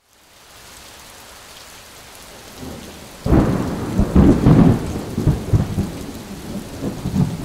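Steady rain, then about three seconds in a sudden loud thunderclap that rolls and rumbles on, slowly fading, to the end.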